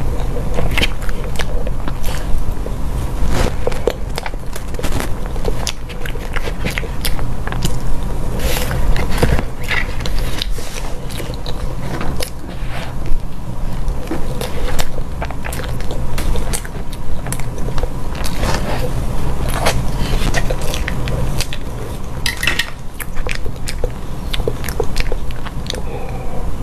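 Close-miked eating of a soft cream box cake: wet chewing and lip-smacking clicks, with a plastic spoon scraping the plastic box. Swallowing gulps of a drink come near the end.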